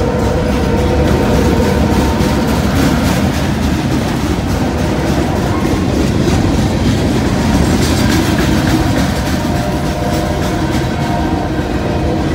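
Freight train cars rolling past close by: a steady loud rumble of steel wheels on rail, with rapid clattering clicks and a few thin whining tones.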